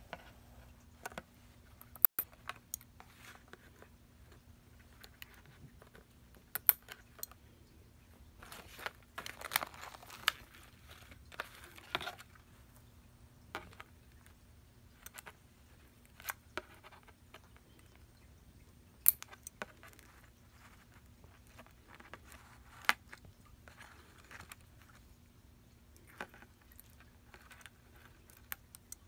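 Nail clippers snipping the plastic ties on a cardboard-backed cat toy package: a few sharp, widely spaced clicks, with rustling and crinkling of the card and plastic between them, the rustling heaviest around the middle.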